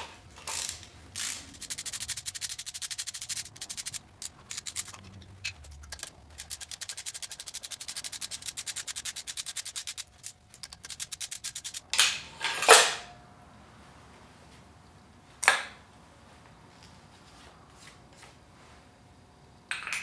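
Ratchet wrench with a 10 mm socket clicking rapidly in two long runs as the thermostat housing bolts are spun out. It is followed by a couple of loud metal clanks.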